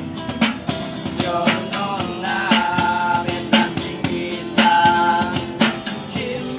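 Song with a steady drum beat, about two hits a second, under a held melody line with some singing.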